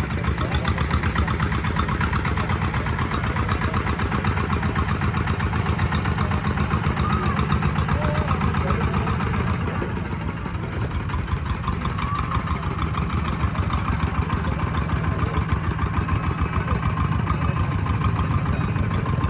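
A boat's engine running steadily with a fast, even pulse.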